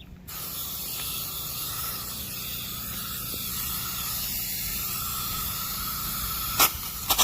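Water spraying hard from a garden hose nozzle: a steady hiss of spray at good pressure. A couple of sharp clicks near the end.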